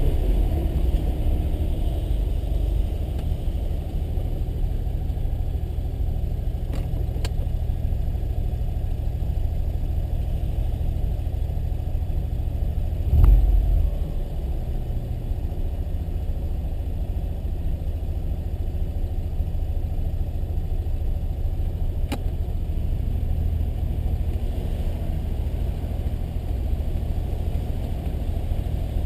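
Mazda RX-7's rotary engine running steadily, its note falling just at the start. A single low thump about halfway through and a few faint clicks stand out.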